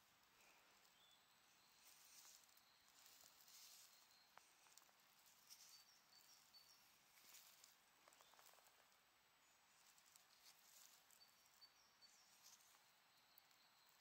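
Near silence: faint outdoor background hiss with a few soft crackles and some thin, high chirps.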